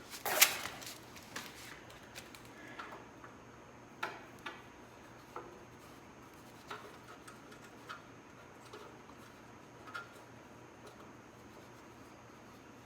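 Scattered light clicks and taps of plastic wiring clips and a wire being worked free from under a motorcycle's rear fender, with one sharper click about half a second in.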